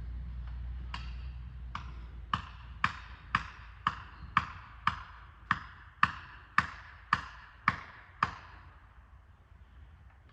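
A hammer or axe head striking a felling wedge driven into a tree's cut, about fourteen ringing blows at roughly two a second that stop about two seconds before the end. A low rumble fades away under the first blows.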